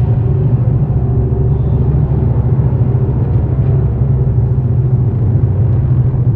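Dark ambient noise drone: a dense, steady low rumbling hum with a few sustained higher tones and a hiss above it.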